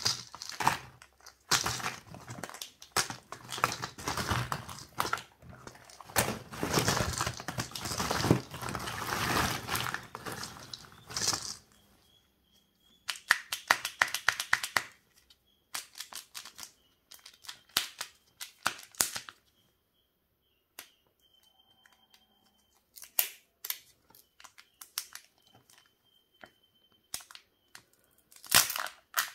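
Hands rummaging through a heap of plastic surprise-egg capsules and wrapped eggs, a dense rustling clatter for the first dozen seconds. Then scattered sharp clicks and crinkles as a Kinder Joy egg's wrapper is handled, with a burst of wrapper crinkling near the end as it is peeled off.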